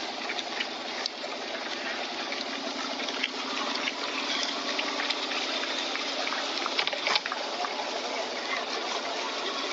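Footsteps of a pack of runners on asphalt, many irregular clicks over a steady rushing noise, with a sharper knock about seven seconds in.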